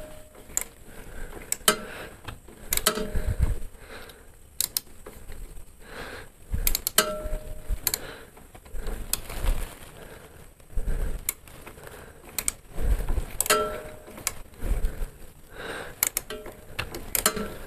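Wrench and other metal hand tools clicking and clinking in irregular knocks, some with a short metallic ring, while the brake hose fittings with new sealing washers are tightened on a motorcycle's front brake caliper.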